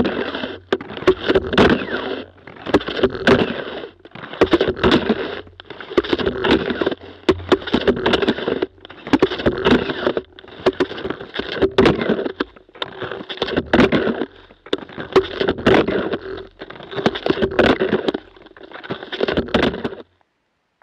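Skis on climbing skins sliding uphill over crusty snow: a rhythmic swish with each stride, about one every second and a bit, with sharp clicks among them. It cuts off suddenly near the end.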